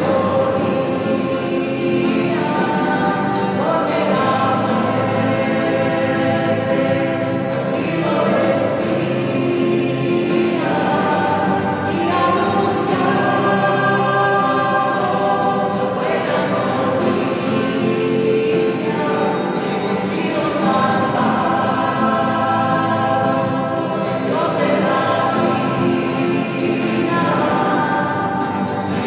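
Choir singing a hymn in slow, sustained phrases of a few seconds each: the entrance hymn that opens the Mass.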